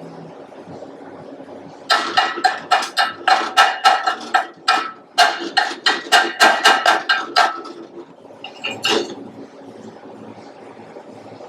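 Chipping hammer striking steel, a fast run of ringing metallic knocks about four a second with a short break midway, then a couple of lighter knocks; typical of knocking slag off a weld run.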